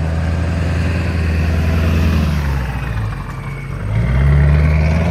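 Pickup trucks driving over a railroad crossing close by: a steady engine note that eases off past halfway, then a truck towing a trailer pulls past about four seconds in, its engine note rising and getting louder.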